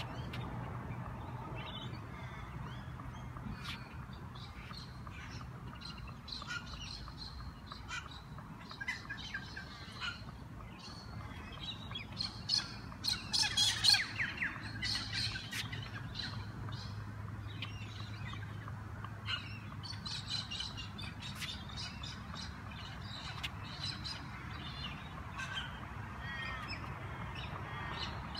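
Birds chirping and squawking, loudest in a burst of harsh squawks about halfway through, over light repeated taps of a tennis ball bouncing off the edge of a racquet frame.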